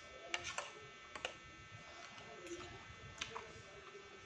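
Metal spoon and fork clicking lightly against a plate a few times while scooping food, several clicks in the first second and a half and one more past three seconds.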